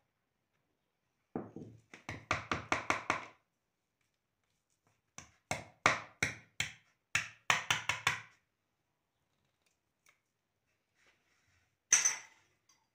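A wire whisk stirring stiff flour-and-yogurt dough in a plastic bowl, knocking against the bowl in two quick runs of strokes, about five a second. One short knock near the end.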